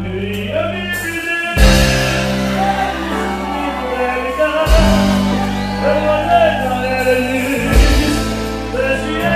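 A band playing, with held bass notes that change about every three seconds under a wavering sung or played melody.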